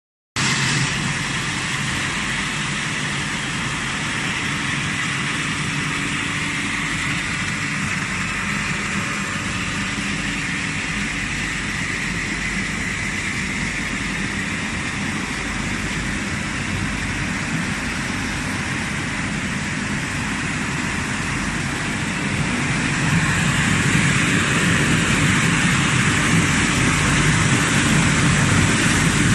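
Automatic plastic-crate washing and drying machine running: a steady machine noise with spraying water. It grows somewhat louder a little over two-thirds of the way through.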